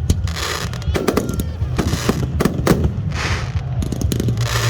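Fireworks cakes firing in rapid succession: many sharp bangs close together.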